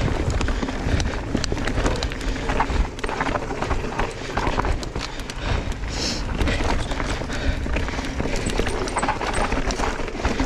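Mountain bike running fast down a rough dirt trail: steady tyre and wind rumble on the bike-mounted camera's microphone, with constant rattling clicks and knocks from the bike over roots and rocks. A short high squeak comes about six seconds in.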